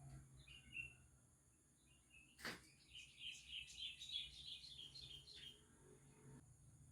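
Faint bird chirping: a quick run of high chirps, about five a second, for a couple of seconds in the middle, after a single short chirp near the start and one sharp click.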